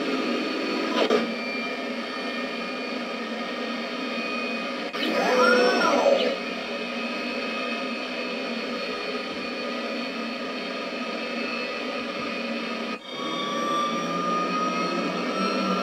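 Jet-engine sound effects from the VF-1S Valkyrie model's built-in speaker, playing its launch sequence: a steady engine whine and rush, with a sound that rises and falls in pitch and is loudest about five seconds in. About thirteen seconds in the sound changes suddenly, and a tone rises slowly in pitch as the takeoff plays.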